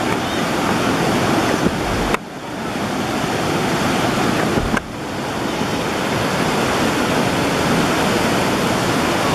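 Flood-swollen Myagdi river rushing past in spate, a loud, steady wash of turbulent water carrying debris. The level dips sharply twice, about two and five seconds in, then builds back up.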